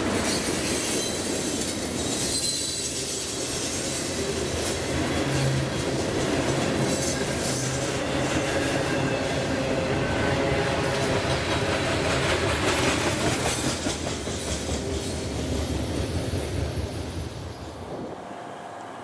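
Freight cars of a passing manifest train rolling by at speed: a steady rumble and clatter of steel wheels on rail, with a faint high wheel squeal at times. The sound drops away abruptly near the end.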